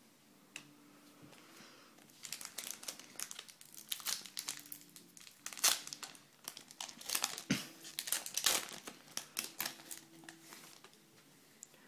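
Hockey card pack wrapper being torn open and crinkled by hand: irregular crackling that starts about two seconds in and runs on, loudest in the middle.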